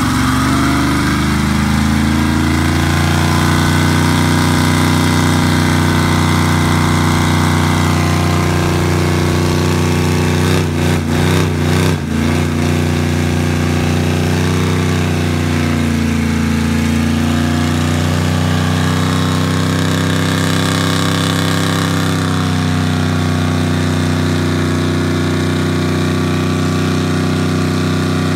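Rat rod pickup truck's engine held at high revs during a tyre-smoking burnout, a loud, steady drone that briefly stutters a little before the middle.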